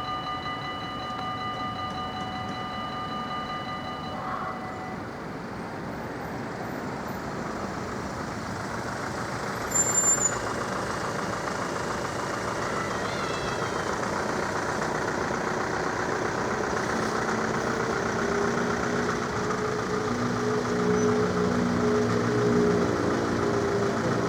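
Level-crossing warning bells ringing steadily, stopping about four seconds in. Then an approaching InterCity train: a rising rush with a brief sharp high sound about ten seconds in, and the train's rumble building to its loudest near the end.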